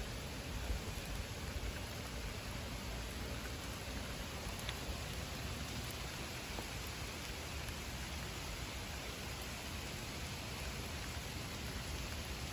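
Heavy thunderstorm rain pouring down in a steady hiss.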